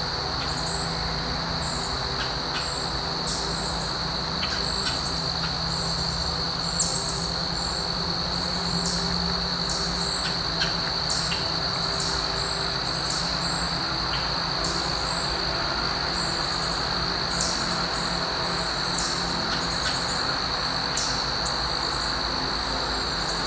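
Outdoor insect chorus: a steady, high, unbroken trill. A few seconds in, a bird starts repeating a short, high, falling chirp about once every second or so.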